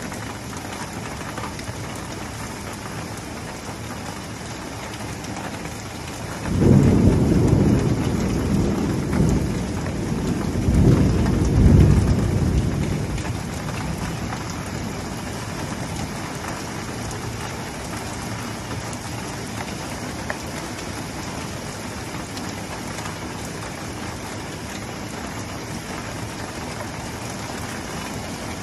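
Steady rain falling on a street and pavement, with a roll of thunder that breaks in suddenly about a quarter of the way through, swells a second time a few seconds later and rumbles away.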